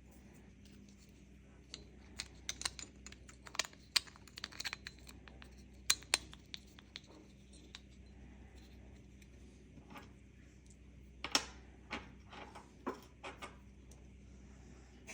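Irregular small clicks and taps of hard plastic and metal parts being handled and fitted together: the pieces of a car key fob and its replacement shell. The clicks come in two clusters with a pause between them.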